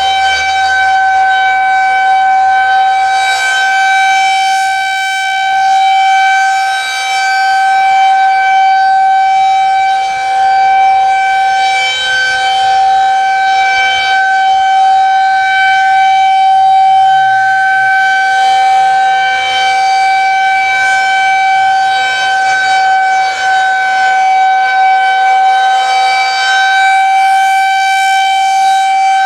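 Federal Signal 2001-130 rotating electromechanical warning siren sounding a steady tone during its monthly test. The pitch holds level throughout while the loudness swells and eases gently every several seconds.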